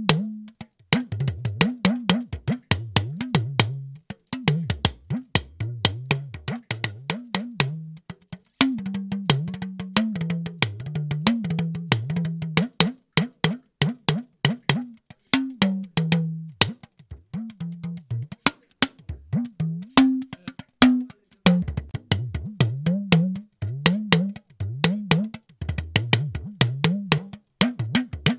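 Recorded talking drum played back, as miked with a Shure SM58 and run through a Pultec-style EQ: rapid stick strikes whose low pitch slides up and down from stroke to stroke, with brief pauses in the rhythm.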